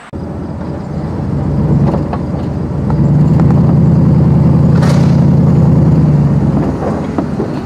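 Truck engine pulling away and then running steady under load, with a single sharp knock or rattle about five seconds in.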